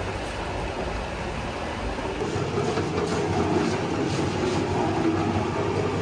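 A machine running steadily with a low rumble and a light rattling clatter.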